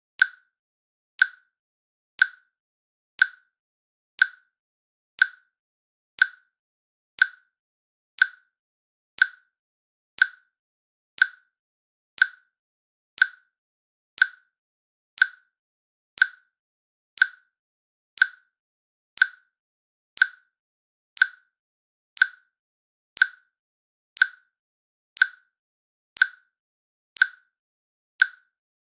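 Countdown timer's click sound effect, one short, sharp click each second with a slight pitch to it, marking off the seconds at an even pace.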